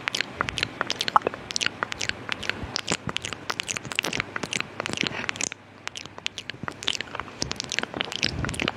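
ASMR mouth sounds close to the microphone: rapid wet clicks and smacks of the tongue and lips, with a short pause a little past halfway.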